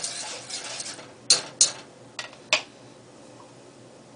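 Wire whip stirring a thin flour-and-milk sauce in a stainless steel saucepan, a soft scraping, then four sharp metallic clinks of utensils and pan, two close together about a second in.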